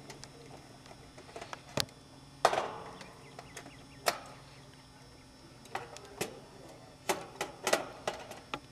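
Irregular clicks and knocks of a nut driver and a metal capacitor mounting bracket being worked loose inside an air conditioner's control panel. The loudest knock comes about two and a half seconds in.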